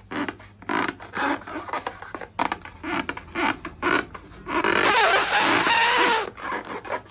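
Slime and rubber balloons being handled: a run of short rubbing and squishing noises, then a steady hiss of about a second and a half with a faint squeak.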